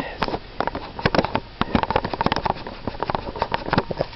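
Close handling noise on a camcorder: rapid, irregular clicks and scuffs right against the microphone.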